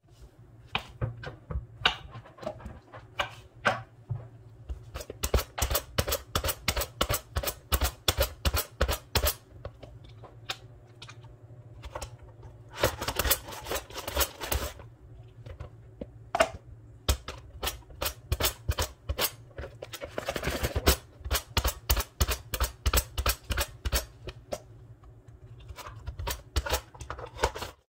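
Zucchini being sliced on a mandoline slicer with its hand guard: quick back-and-forth strokes, each a sharp click, about four or five a second, in runs broken by short pauses.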